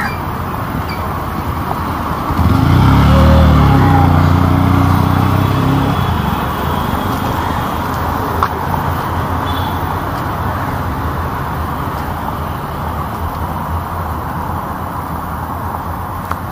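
Steady road traffic noise, with one motor vehicle's engine passing close from about two seconds in and fading away by about six seconds.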